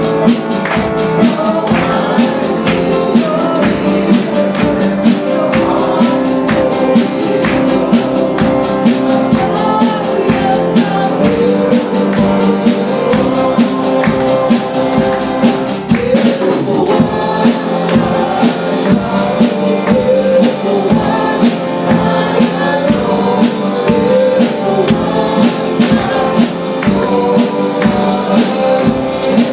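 Live church worship band playing an upbeat praise song, with a steady percussion beat and guitar, and singing.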